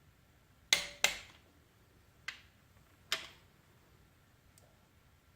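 Sharp metal clicks from a click-type torque wrench set to 28 ft-lb, tightening connecting-rod bolts on a 6.0 LQ4 V8: four clicks, the first two close together, then two more spread apart.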